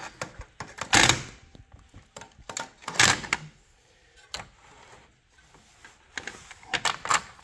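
Scattered clunks and clicks from handling the opened metal chassis of a linear amplifier. The two loudest come about a second in and about three seconds in, with fainter ticks in between and near the end.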